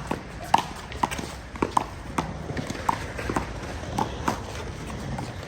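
Rubber handball rally in one-wall handball: the ball is slapped by hands and smacks off the wall and the court, about ten sharp, irregularly spaced smacks.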